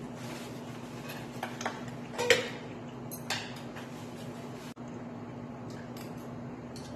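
Metal chopsticks and tongs clinking and scraping against plates and the pan: a few sharp clicks, the loudest about two seconds in, with a steady low hum of room noise beneath.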